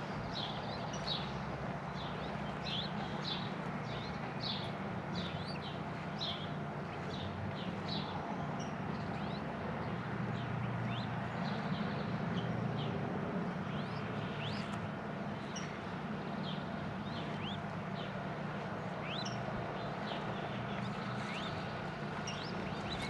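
Small birds chirping repeatedly, short high chirps and quick rising calls, over a steady low hum of outdoor ambience.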